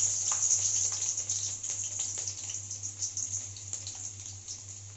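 Chopped garlic sizzling in hot oil: a frying hiss full of small pops that slowly dies down as the oil settles.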